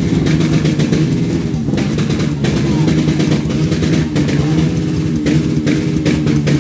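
Kawasaki Barako motorcycle engine running loudly, with a rough, uneven exhaust note as the throttle is worked.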